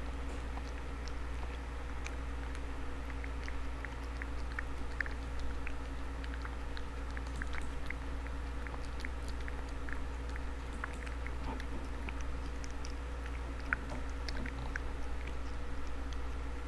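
Tortoiseshell cat chewing wet food from a paper bowl: quick, irregular small clicks. A steady low hum runs underneath.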